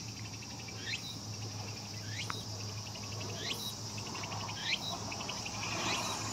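Insects calling in a steady evening chorus, with one call repeating about every second and a bit: a quick rising note followed by a fast trill. A low steady hum underneath.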